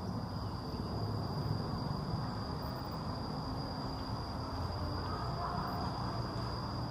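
Outdoor ambience: a steady high-pitched insect drone held throughout over a low, even background rumble.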